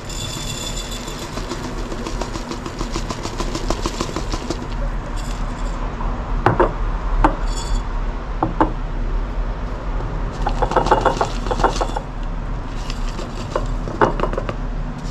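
Dry rolled oats pouring into glass mason jars, a dense rapid patter of flakes on glass over the first few seconds. Then come several sharp clinks of the glass jars being lifted, knocked and set down on the stone counter.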